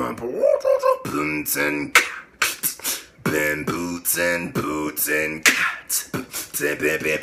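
A man beatboxing a dubstep pattern: short, repeated, pitched vocal bass notes cut between sharp snare and hi-hat clicks in a steady rhythm, with a rising vocal sweep right at the start.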